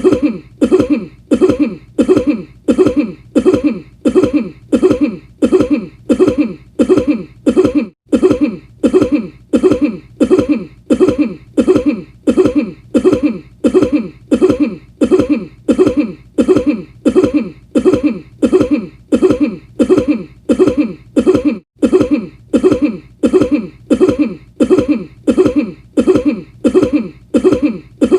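A person's cough repeated over and over at a machine-even pace, roughly two short coughs a second, the same cough looped, with two brief breaks in the run.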